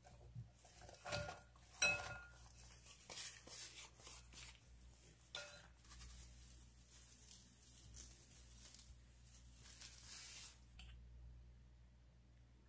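Sliced onions tipped from a ceramic bowl into a glass bowl: two sharp ringing clinks as the bowls knock together, then quiet rustling and scraping of the onion slices.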